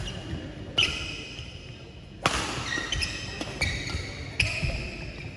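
Badminton rackets hitting the shuttlecock in a fast doubles rally: about five sharp hits, roughly one a second, each followed by short high ringing tones.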